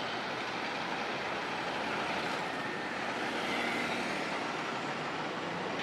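Steady street noise of passing road traffic.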